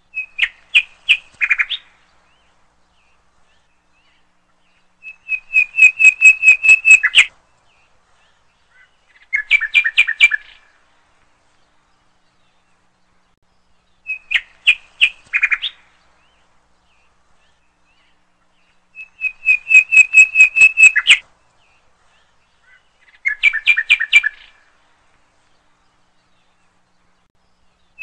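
Looped recording of bird chirping: short runs of rapid, high chirps in three phrases with silence between, the same sequence repeating about every 14 seconds.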